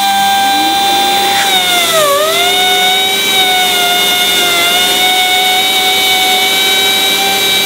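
Step sander's high-speed rotary cutter starts abruptly and runs with a steady whine as it grinds down through a composite laminate. About two seconds in, the pitch dips and recovers, with a smaller dip later on.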